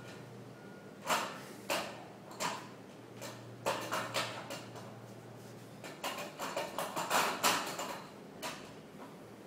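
Rowing machine's sliding seat rolling back and forth along its rail as it is pushed and pulled, in a series of short, irregular sliding and knocking noises that come thickest near the end.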